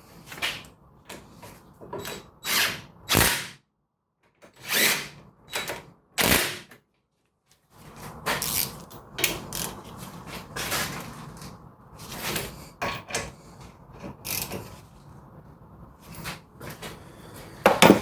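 Irregular metallic tool clatter and short bursts of tool noise as the brake caliper bracket bolts are fitted and tightened. The sound drops out completely twice.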